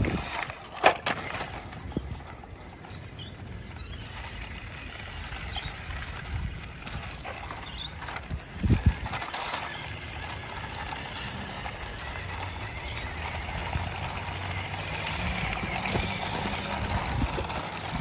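Small electric RC truck driving over dirt and rock, its motor and gears running under a steady crunching of tyres, with a sharp knock about a second in and a heavier one near the middle.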